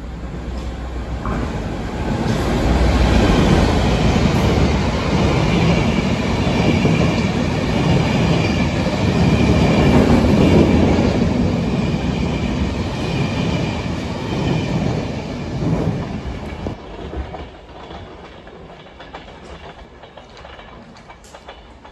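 Enterprise passenger train running past on the near track, a heavy rumble of wheels and coaches with a steady high whine over it. It builds to its loudest about ten seconds in, then drops away near the end.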